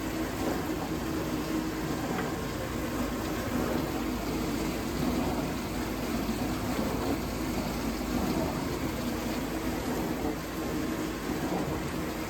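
Vintage dishwasher running its wash cycle: a steady motor and pump hum with water spraying inside the tub. The water spray sounds weaker than full force, which the owner takes to mean the pump could be restricted.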